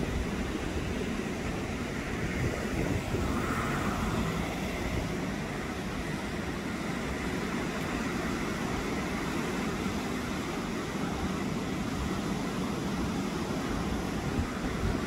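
Steady rushing noise of sea surf breaking on a rocky shore, with an uneven low rumble underneath.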